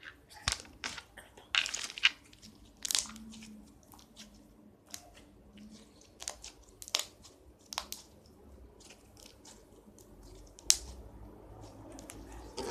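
Slime being squeezed and worked in the hands, making irregular sticky clicks and pops.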